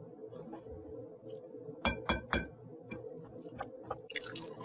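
Wooden spoon stirring washed chena curds in a muslin-lined strainer: faint scraping ticks, with three quick sharp knocks about two seconds in.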